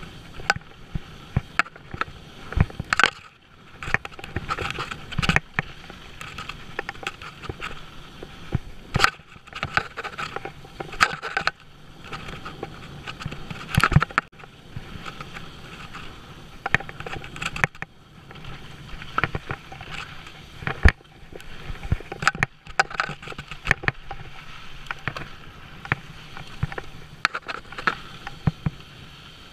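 Mountain bike descending fast over a rocky dirt trail: a continuous rush of tyre and wind noise, broken by frequent irregular sharp clatters and knocks as the bike hits bumps and rocks.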